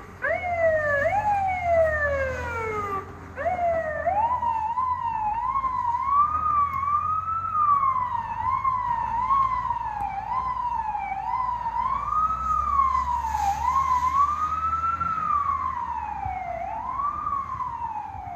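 Federal Signal PA300 electronic siren sounding: a run of quick falling sweeps, a brief break about three seconds in, then the tone rises and falls unevenly, some swings quick and some slow and drawn out.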